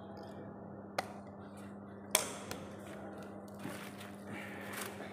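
Scissors snipping thin wire: two sharp snips about a second apart, the second the louder, followed by rustling of the plastic artificial-grass mat as the wire is worked through it. A steady low hum runs underneath.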